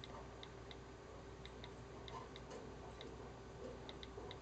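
Faint keyboard clicks from an iPhone 4's on-screen keyboard: quick, irregular little ticks, one for each key tapped.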